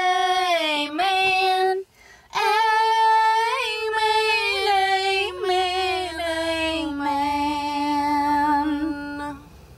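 A woman singing a cappella in long, held notes with small ornamental turns. There is a short break for breath about two seconds in, and the melody steps down to lower notes near the end.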